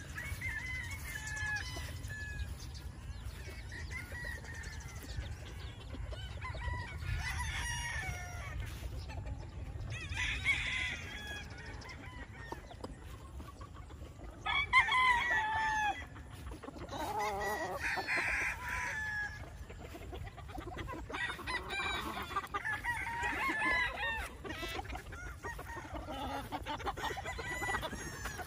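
Several gamecocks crowing in turn, each crow a long call falling in pitch, with the loudest about halfway through.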